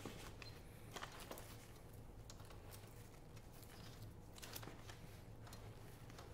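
Faint rustling and a few scattered soft clicks from hands handling a fabric rifle backpack, over a low steady hum.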